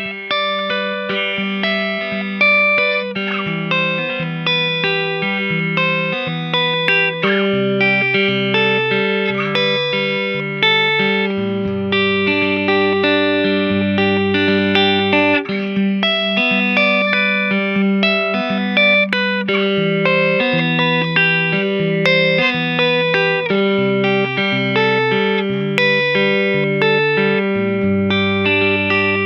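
Gibson ES-335 semi-hollow electric guitar with Burstbucker humbucking pickups, played fingerstyle through an amp: picked melody notes ringing over a moving bass line.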